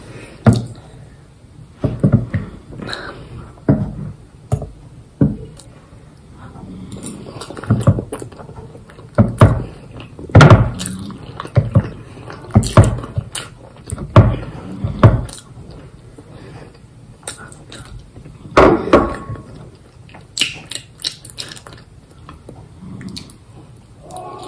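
Close-up eating sounds: a fork clinking and scraping against a small stainless-steel bowl, with chewing and slurping of sauced penne pasta, coming in irregular short bursts.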